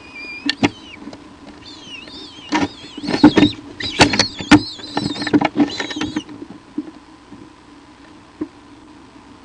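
Rapid high-pitched, wavering squeaks and chirps, mixed with sharp clicks and scratches, from about half a second to about six seconds in, over a steady low hum.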